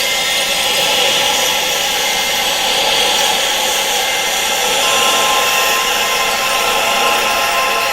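Steady wind-noise hiss for tinnitus sound therapy, thin with no low rumble, with several faint steady tones held underneath; a new tone joins about five seconds in.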